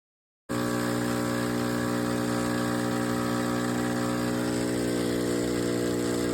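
Steady, loud machine drone with a low pitched hum, starting abruptly about half a second in and cutting off sharply.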